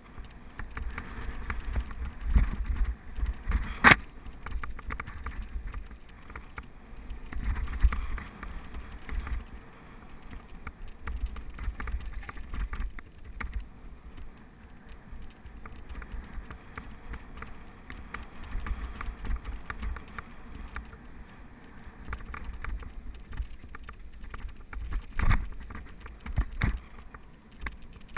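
Uneven rumble and rattling from fast travel over a bumpy dirt trail, with air buffeting the microphone. A sharp knock comes about four seconds in, and another near the end.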